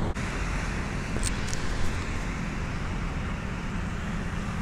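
Steady road traffic noise with a low rumble, and a couple of faint short high chirps a little over a second in.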